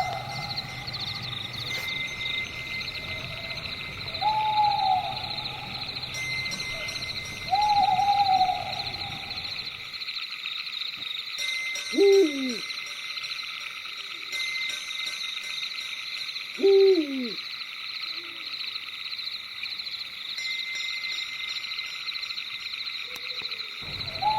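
Crickets chirping in a dense, steady high trill while an owl hoots: three short level hoots in the first ten seconds, then two louder calls about halfway through that slide steeply down in pitch.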